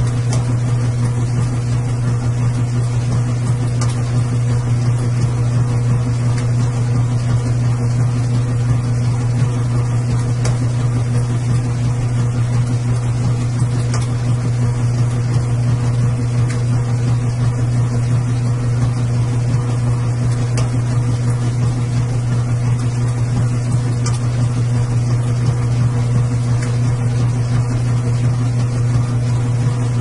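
Washing machine running with a steady low hum that does not change, with a faint tick now and then.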